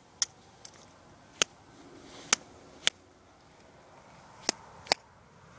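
A can of Skoal Long Cut dip being packed on its side: about six sharp taps at uneven intervals as the tin is struck to pack the tobacco tighter.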